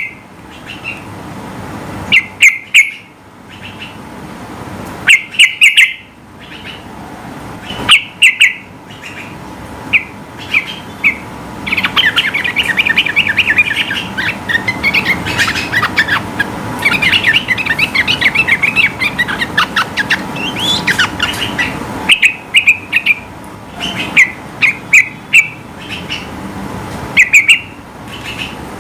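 Yellow-vented bulbul singing loud, short bubbling phrases every few seconds. Around the middle these break into a long run of fast chattering notes, about ten seconds of continuous rapid song.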